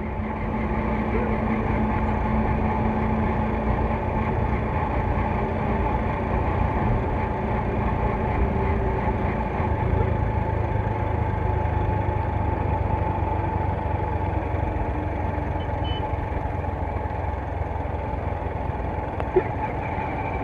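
TVS Sport single-cylinder motorcycle engine running steadily at cruising speed, with road and wind noise.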